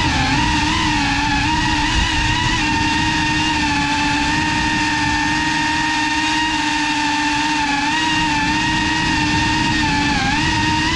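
GEPRC CineLog35 cinewhoop FPV drone's motors and propellers whining steadily, heard close up from the camera on board; the pitch wavers and dips briefly about a second in and again near the end as the throttle changes.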